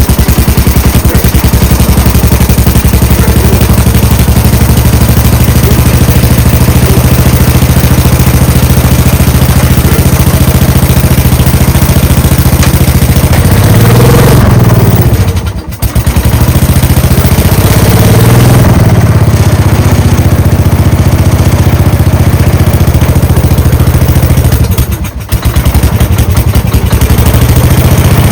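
Gravely tractor engine running loudly on a cold start in freezing weather. Its pitch swells up and down around the middle, and it twice drops away for under a second, about halfway through and near the end, before picking back up.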